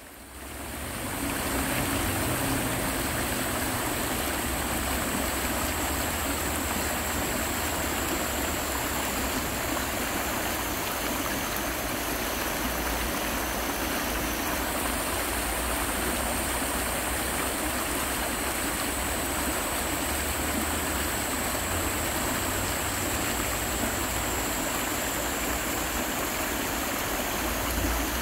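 Shallow stream rushing and splashing over rocks, a steady wash of water that fades in over the first second or so.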